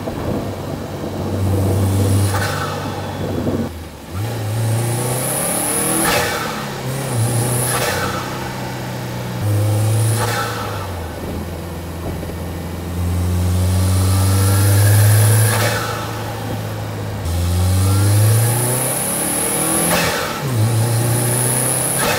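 Turbocharged Subaru Impreza WRX STI flat-four engine accelerating in repeated pulls, its note rising with each one, with a high whistle during several pulls. Each pull ends in a short whoosh as the throttle shuts and the diverter valve recirculates the boost back into the intake instead of venting it.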